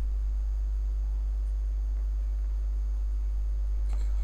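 Steady low electrical mains hum with its overtones, the recording's background hum, with a faint click near the end.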